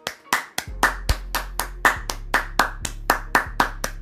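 Hand claps in a fast, fairly even rhythm, about four a second, over a low steady hum.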